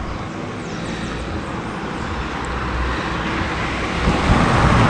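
Rumble of a passing vehicle, growing steadily louder toward the end.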